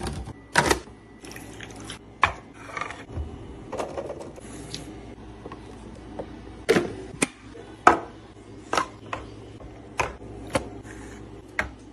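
Clear plastic fridge-organiser bins and the food and bottles going into them, handled on a counter: a scattering of sharp plastic clicks and knocks, one every second or so, the loudest about 7 and 8 seconds in.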